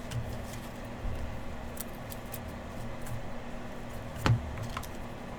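A few light clicks and taps with soft handling noise, the loudest about four seconds in, over a low steady hum.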